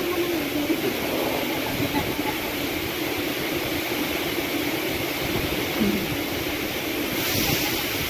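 Waterfall rushing steadily into a pool, an even wash of water noise with no break; the hiss grows brighter about seven seconds in.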